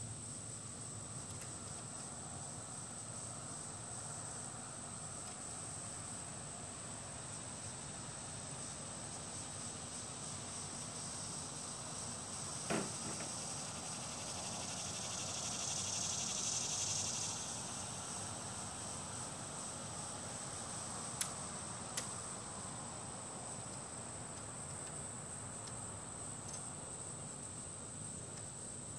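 A steady, high-pitched insect chorus, which swells louder for a few seconds just past the middle. A short passing sound comes a little before halfway, and two sharp clicks come about three-quarters of the way through.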